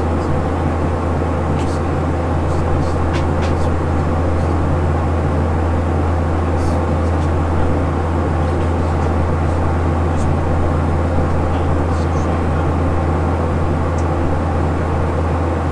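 Steady cabin noise of a Boeing 737-800 in flight: the even drone of its CFM56 engines and rushing air, with a strong low hum underneath.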